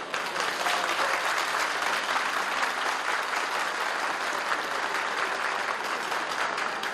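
A large banquet-hall audience applauding, many hands clapping together. The applause starts suddenly.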